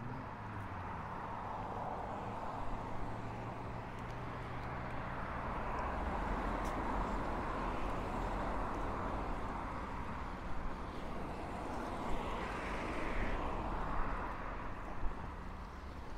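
Road traffic passing: a steady rush of engines and tyres that slowly swells and eases, with a low engine hum in the first few seconds and a few sharp clicks.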